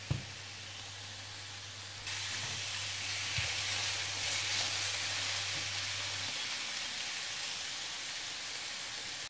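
Diced courgettes sizzling in a frying pan as they are stirred, a steady hiss that gets louder about two seconds in, with a couple of light taps of the spoon on the pan. The courgettes are nearly cooked down, most of their water boiled off.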